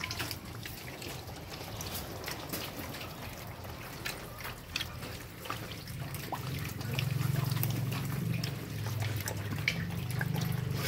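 Pigs eating wet feed from a trough: a run of wet chewing, slurping and small smacking clicks. Low grunting grows louder from about seven seconds in.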